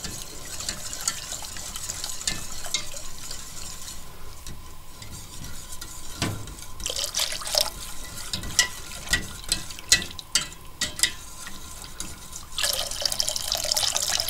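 Thin stream of water poured into a steel pot of hot browned roux while a wire whisk stirs it and clicks against the pot. The pouring eases off after a few seconds, leaving a run of sharp whisk clicks, and the pouring starts again, louder, near the end. The water is added bit by bit and whisked hard so the sauce does not go lumpy.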